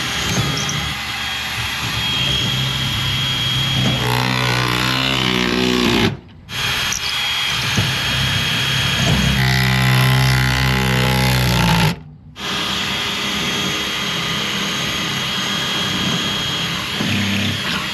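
Electric drill boring pilot holes for lag screws through dry boards, in three runs of about six seconds each with two short stops between. A deeper motor note comes in towards the end of the first two runs as the bit works through the wood.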